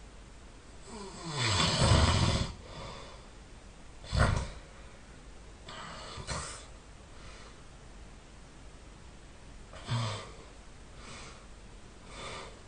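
A sleeping person snoring: one long, loud snore that slides down in pitch as it builds, then a short, sharp snore a couple of seconds later and three fainter ones spread through the rest.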